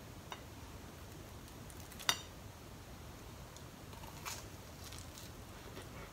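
Quiet room with a sharp click about two seconds in, then a soft crunch about four seconds in as a slice of natto-and-cheese toast is bitten into, followed by quiet chewing.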